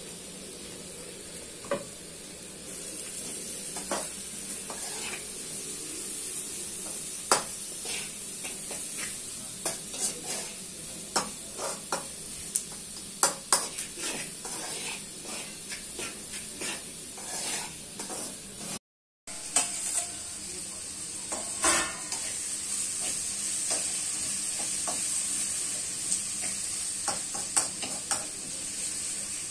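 Chopped onions and green chillies frying in an aluminium kadai over a gas flame, with a steady sizzle that builds up a few seconds in. A spoon stirs them, scraping and clinking against the pan again and again. The sound cuts out completely for a moment about two-thirds of the way through.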